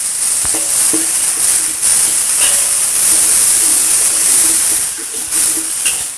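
Ground spice paste sizzling in hot oil in a wok as it is stirred: a loud, steady hiss that swells in the middle and eases near the end.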